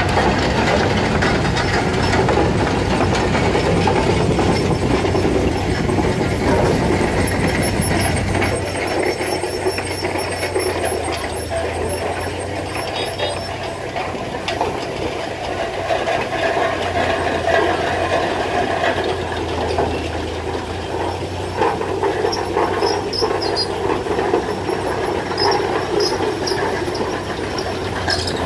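Steam traction engines running past in a parade, a steady mechanical sound of their engines and running gear. It is heaviest in the first eight seconds while one engine passes close, then lighter as the engines move along.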